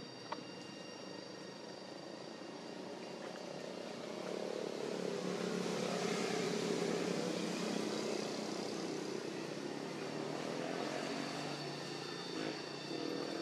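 Engine of a passing vehicle, growing louder from about four seconds in, peaking around six to seven seconds and fading slowly. Steady high tones sound throughout.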